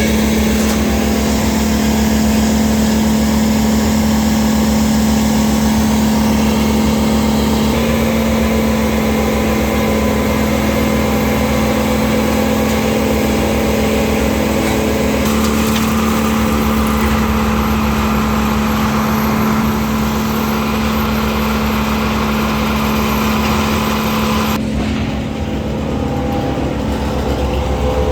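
An engine running steadily at a constant pitch, with abrupt shifts in its sound about a quarter, half and seven-eighths of the way through.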